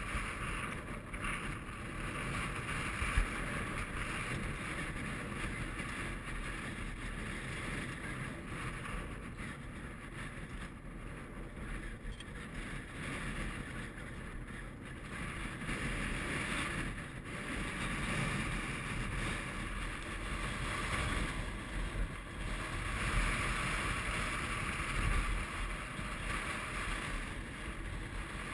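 Strong wind blowing over the camera's microphone: a steady rush with low rumble that swells and eases in gusts, with one sharp knock about three seconds in.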